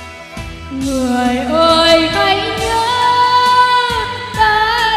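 A woman singing karaoke into a microphone over a backing track played through PA speakers. Her voice comes in about a second in and holds a long note through the middle.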